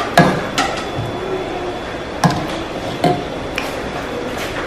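About five sharp knocks of a spoon against an aluminium pot while stirring a thick pasta sauce, the first the loudest.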